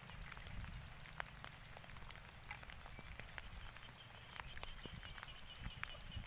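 Faint rain falling, with scattered drops ticking over a steady low rumble.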